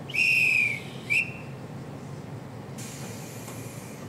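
Two blasts on a conductor's hand whistle, a long one that falls slightly in pitch and then a short one: the signal given before the train's doors close and it departs. A soft hiss follows a little later.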